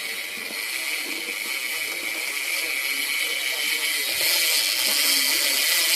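BMX bike's freewheeling hub ratchet ticking so fast it runs together into a steady high buzz as the upturned wheel spins, a little louder in the second half.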